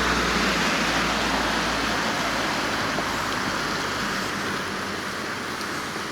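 A passing car's engine hum and tyre rush, fading steadily as it drives away; the engine hum dies out about two seconds in, leaving the fading tyre noise.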